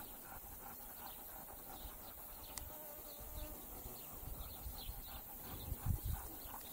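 Quiet open-air ambience with an insect buzzing and faint short chirps, and a brief low rumble near the end.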